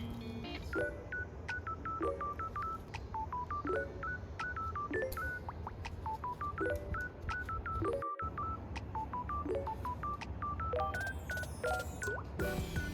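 Background music: a quick melody of short, beep-like electronic notes stepping up and down, over a repeating lower figure and a steady low bass. The sound cuts out briefly about eight seconds in.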